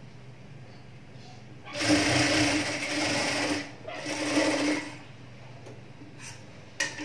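Industrial sewing machine stitching a blouse seam in two runs, one of about two seconds and a shorter one of about a second, with a steady motor hum between them. A few short, sharp clicks follow near the end.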